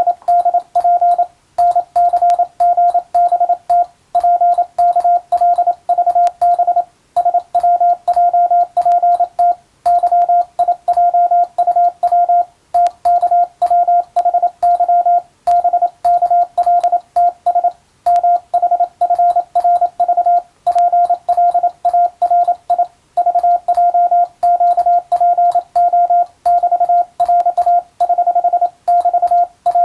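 Morse code sent on a hand telegraph key: a single steady mid-pitched tone keyed on and off in quick dots and dashes, with short pauses between words and a faint click at the strokes. It is an English-language radiotelegram sent for Morse receiving practice.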